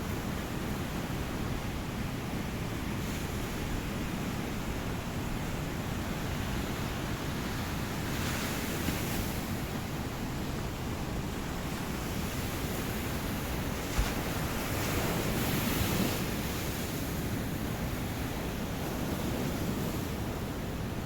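Ocean surf washing steadily, with two waves breaking more loudly, about eight and fifteen seconds in. A brief sharp click comes just before the second.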